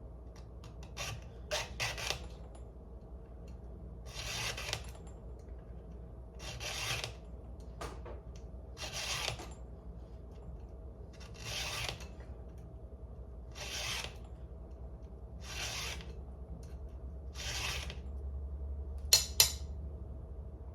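A file rasping across the cutting teeth of a Stihl 440 Magnum saw chain during sharpening, in separate strokes about every two seconds with a quicker few near the start. Two sharp clicks near the end are the loudest sounds.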